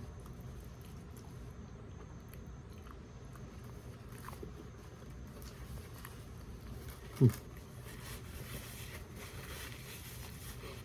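Quiet chewing, a person eating a forkful of microwaved chicken Parmesan and rigatoni, with faint small mouth and fork noises. About seven seconds in there is one brief, loud, low sound that drops quickly in pitch.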